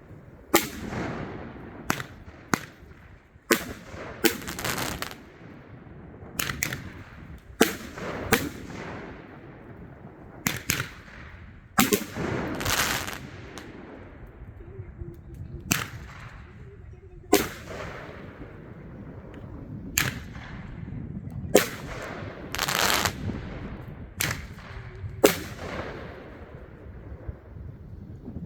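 Fireworks going off: a string of sharp bangs, one to three seconds apart, several of them followed by a second or so of crackling hiss.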